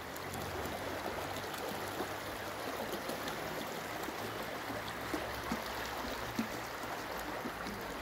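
Shallow river running over stones in a rocky gorge: a steady rushing and rippling of water.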